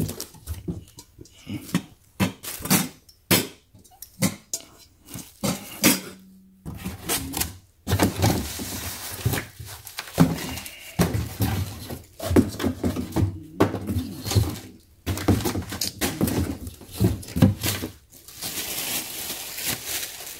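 Stainless steel pots and glass lids knocking and clinking as they are unpacked and set down, with cardboard packaging and plastic wrap rustling and crinkling. The clinks come one after another at first; the rustling takes over after about eight seconds.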